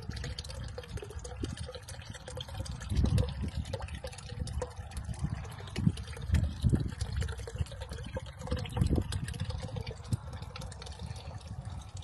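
Water trickling steadily in a backyard fish pond, with irregular low gusts of wind buffeting the microphone.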